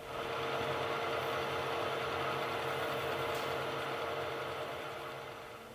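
Vertical boring machine running steadily with a constant hum as its cutter bores out a balance-shaft bushing in a D4CB engine block, easing off near the end.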